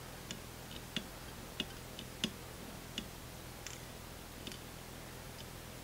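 Faint, irregular small clicks and ticks, about nine of them, from fly-tying tools being handled at the vise as thread is wrapped onto the hook.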